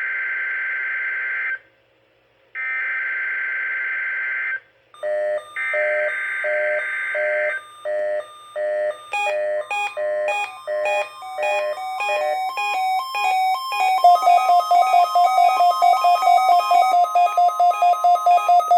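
NOAA Weather Radio SAME header: three bursts of screechy digital data, about two seconds each with short gaps, announcing a Required Weekly Test. Then a weather radio receiver's alert beeps start, layer up, and from about two-thirds of the way in settle into rapid steady beeping, about four beeps a second.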